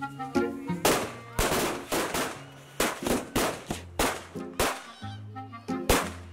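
A bundle of firecrackers going off in a ragged string: about a dozen sharp bangs at uneven gaps, the loudest near the end. Background music plays underneath.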